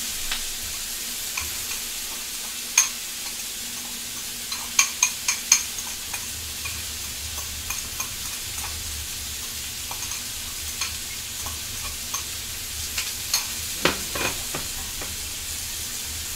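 A spatula knocking and scraping against a pan while spaghetti is stirred together with cheese for carbonara, over a steady sizzle from the hot pan. The knocks come singly about 3 s in, as a quick run of four near 5 s, and as another run near the end.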